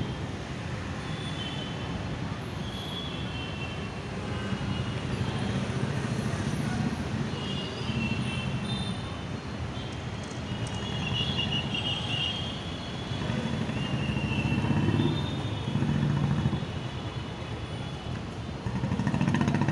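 Steady low rumble of city traffic, swelling louder a few times, with short high-pitched chirps now and then.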